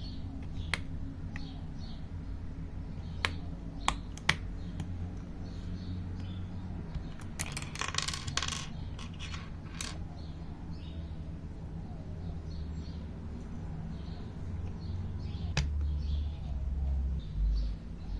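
A handful of sharp, separate clicks and, about eight seconds in, a brief clatter of quick clicks, from the keyboard's small hard plastic switches being handled.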